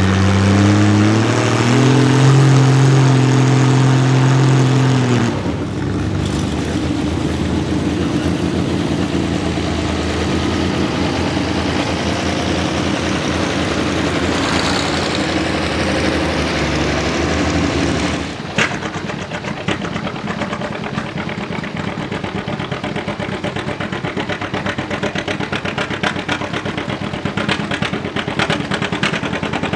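Antique pulling-tractor engines running on the track. A steady engine note rises in pitch about a second in and cuts off at about five seconds, a rougher engine sound follows, and at about 18 seconds it changes to an engine with fast, even firing pulses.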